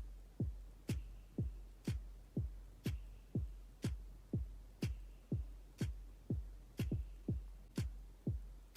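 Electronic background music with a steady beat: a deep kick drum that drops in pitch about twice a second, with a sharp clap about once a second.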